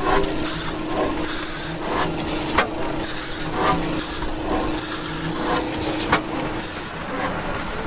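Antique stationary engines running with a steady hum and occasional sharp knocks. Short, high-pitched chirping squeaks repeat irregularly about once a second.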